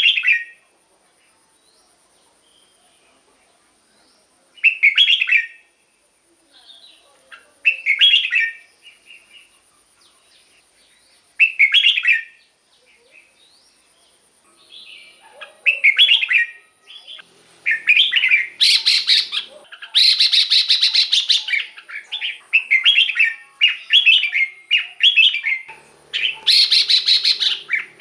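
Red-whiskered bulbul singing short, warbling phrases, spaced a few seconds apart at first and then coming one after another from about halfway, with a few louder, harsher bursts near the end.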